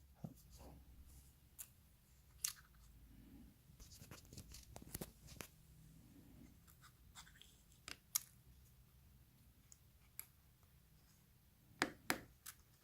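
Faint scattered light clicks and taps from handling an iPhone 6 and its new replacement display while fitting it, with a pair of sharper clicks near the end.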